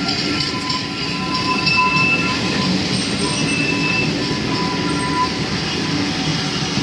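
Passenger coaches rolling past on curved track: a steady rumble of wheels on rail, with high-pitched wheel squeals coming and going.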